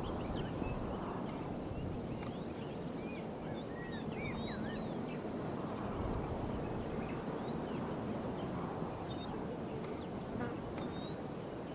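Outdoor nature ambience: a steady low hum with short chirps scattered through the first half and again near the end.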